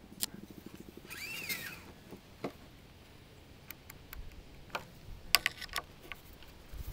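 Small metal clicks and taps from adjusting a metal bamboo rod planing form: a T-handle hex key turning a station's click adjuster and a dial depth gauge being set against the form. A brief squeak comes about a second in, and a quick run of clicks a little past the middle is the loudest part.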